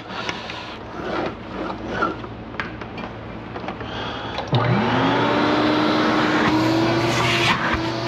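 Clicks and handling noise, then about halfway through a Viking 720 (Electrolux Turbomatic) canister vacuum's motor switches on, its whine rising quickly in pitch as it spins up, then running steadily. This is the test run of the freshly repaired machine.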